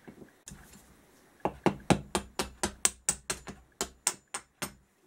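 A hammer tapping a screwdriver used as a drift into a seized motorcycle brake caliper: a quick, even run of about fifteen sharp metal taps, four or five a second, starting about a second and a half in, to knock the caliper free.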